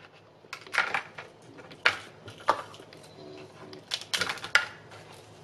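Kitchen scissors snipping through dried red chili peppers: crisp, crackling cuts at irregular intervals, with a quick cluster of them about four seconds in.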